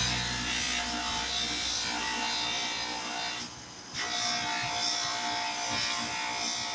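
Motor-driven fiber wheel spinning with the spokeshave's steel cap pressed against it for polishing: a steady whirring and rasping. It eases off briefly about three and a half seconds in, then picks up again.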